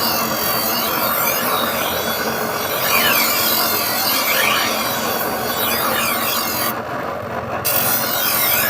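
Steel cane-knife blade being filed, with repeated rasping strokes of metal scraping along the edge. The high hiss drops out briefly near the end.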